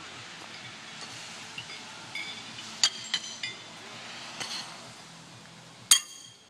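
Steel horseshoes clanking against the stake and each other: several light ringing clinks in the middle, then one loud, sharp ringing clang near the end.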